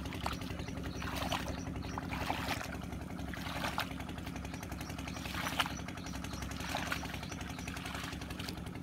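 Bare feet splashing and squelching through the shallow water and mud of a flooded paddy field, about one step a second, over a steady engine drone.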